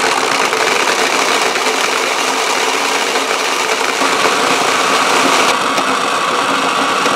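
Toy blender's small electric motor running steadily while gumballs rattle and spin around inside its clear plastic jar. About five and a half seconds in the sound changes slightly and loses some of its top end.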